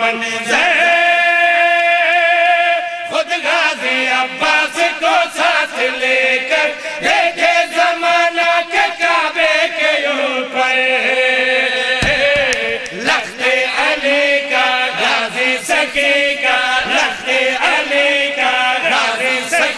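Men's voices chanting devotional verses loudly together. One long note is held for about the first three seconds, then shorter chanted phrases follow.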